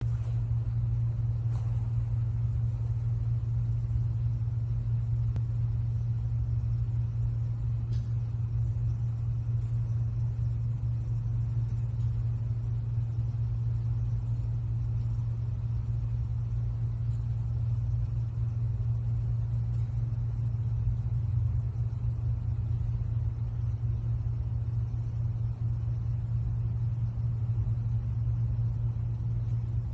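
Steady low rumbling hum with no speech, unchanging throughout.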